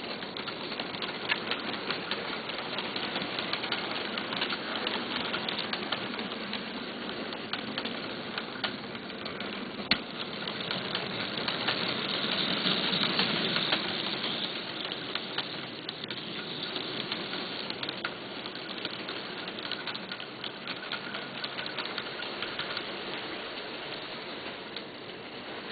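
HO-scale model freight train hauled by a BLS Cargo Re 485 locomotive running along the track: a steady clicking rattle of small wheels over rail joints and points, growing louder about halfway through as the train passes closest and then easing off.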